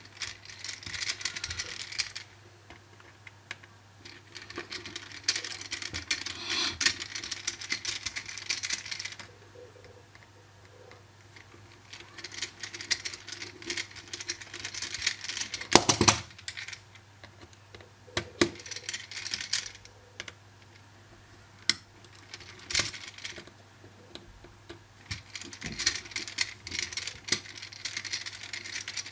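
Magnetic precision screwdriver backing small screws out of a Samsung Galaxy Note 2's back housing: bursts of fine rapid clicking and scraping a few seconds long, one per screw, with short pauses between them. A single sharp knock about halfway through.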